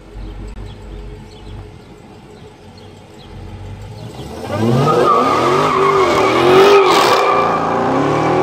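Dodge Charger engine running low as the car pulls out, then about four and a half seconds in it revs hard in a burnout, the pitch rising and falling over and over as the rear tyres spin.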